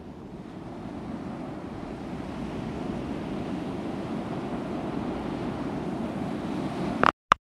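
Ocean surf, a steady rush of waves growing slowly louder, cut off abruptly about seven seconds in by a brief sharp sound.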